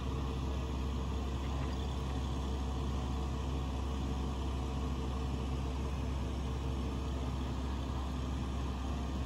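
Heavy engine idling steadily at an even pitch, with no change in speed.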